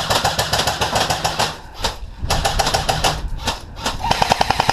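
Airsoft electric guns firing rapid full-auto bursts, a fast run of sharp clicks, broken by two short pauses, about one and a half seconds and about three seconds in.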